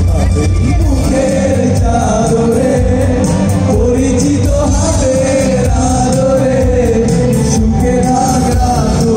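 Live band music played loud through a PA, with male voices singing the melody over the band.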